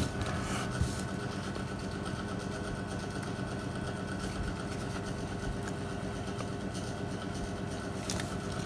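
A steady mechanical hum, like a motor running, with a few faint clicks in the first second and again near the end.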